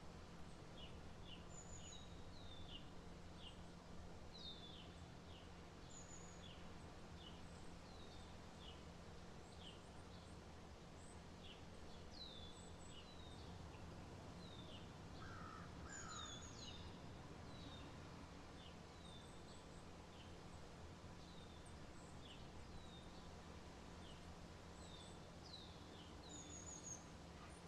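Faint birds chirping: short, quick downward-sliding chirps, about one or two a second, over a steady low hum.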